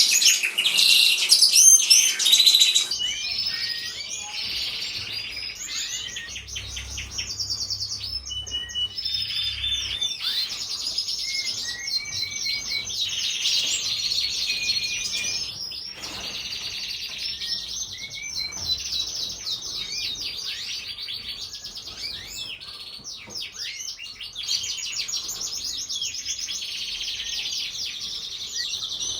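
North Dutch Frill canary song: fast trills and rolling warbled phrases that run on without a break, loudest in the first few seconds.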